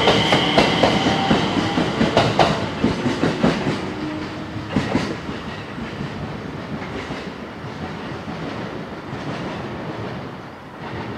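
Electric commuter train pulling away, its wheels clacking over rail joints. The clatter is loud at first, then fades steadily as the train draws off.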